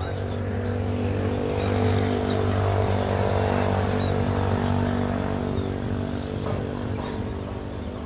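A motor engine droning steadily, growing louder to a peak a few seconds in and then slowly fading, as a vehicle or aircraft passes.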